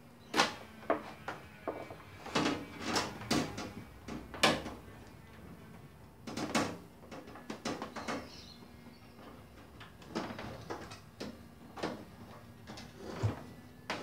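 Irregular clicks, knocks and scrapes of hand tools and metal parts being handled inside a washing machine, as a spring is drawn back into place with a wire and screwdriver. The clicks come at uneven intervals, the sharpest about half a second in and around four and six and a half seconds.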